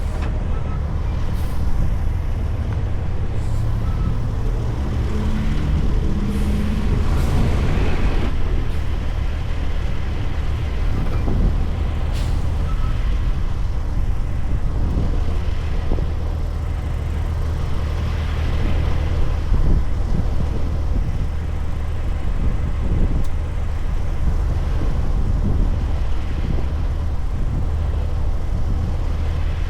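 Diesel engine of a heavy semi truck running with a steady low drone while pulling a load of about 129,000 lbs gross.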